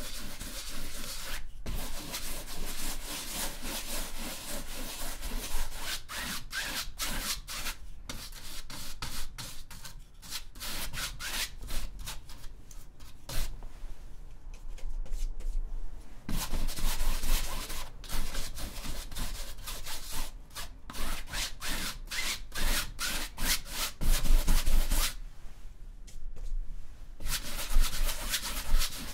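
Paintbrush scrubbing acrylic paint across a stretched canvas in fast back-and-forth strokes, with a couple of short pauses between strokes.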